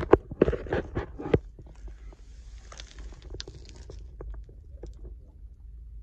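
Footsteps on dirt and gravel with phone handling noise: a quick run of sharp knocks in the first second and a half, then a soft rustle and a few faint ticks over a low rumble.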